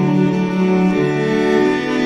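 Background music: slow bowed strings holding long notes, with the notes changing about a second in.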